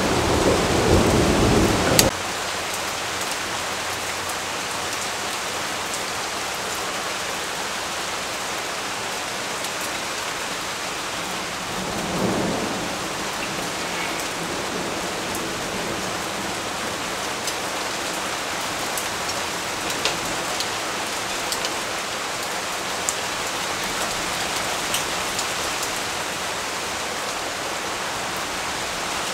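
Steady rain with scattered drips. A loud rumble of thunder at the start stops suddenly about two seconds in, and a fainter rumble swells briefly near the middle.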